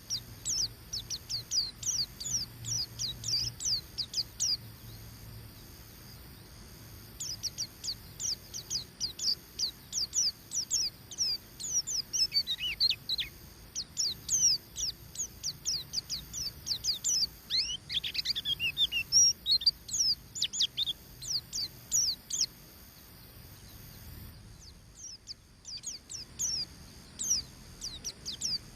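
White-eye (pleci) singing its fast 'ngeriwik' chatter: a rapid run of high, downslurred chirps, several a second, with a few longer falling notes mixed in. It breaks off briefly twice, about a fifth of the way in and near the end.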